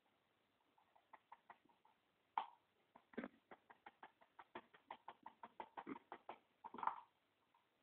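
Red-fronted parakeet bathing: a faint, irregular run of short splashes and flicks of water, a few of them louder.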